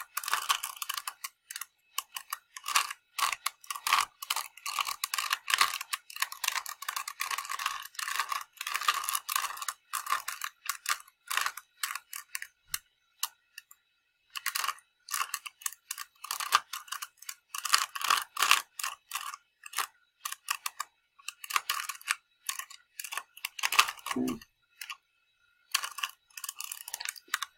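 Plastic clicking and rattling of a small Rubik's cube being twisted, in quick runs of turns with short pauses between them.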